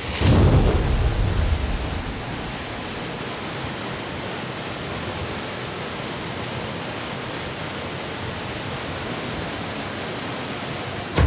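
A steady rushing noise that swells up suddenly at the start, is loudest for the first couple of seconds, then settles and holds even.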